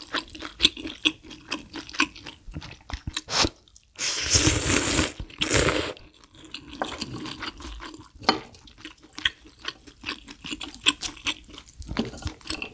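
Close-miked wet eating sounds from a bowl of spicy malatang with glass noodles: many short chewing and mouth clicks, and a loud slurp about four seconds in that lasts about two seconds with a brief break.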